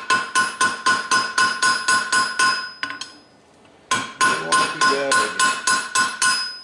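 Rapid hand-hammer blows on an anvil, about four a second, each with a bright metallic ring, as hot iron is worked round on the anvil horn. The hammering pauses for about a second midway, then resumes.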